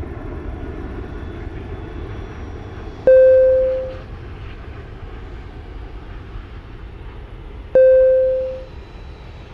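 Steady jet airliner noise, with a single-tone cabin chime ringing twice, about five seconds apart, each fading out over about a second.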